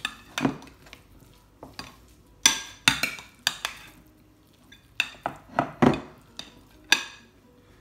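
A metal spoon scraping and clinking against a glass bowl as it scoops mashed swede, in about ten sharp, irregular clinks and scrapes.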